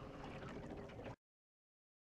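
Faint wind and water noise around a small boat for about a second, then the audio cuts out abruptly to dead silence.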